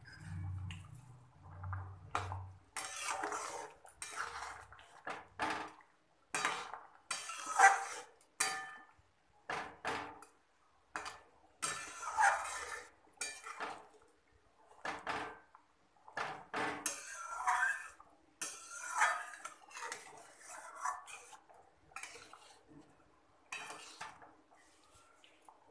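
Metal spatula scraping and clinking against a metal kadai while stirring fish curry, in irregular strokes about one or two a second, with one louder clank about eight seconds in.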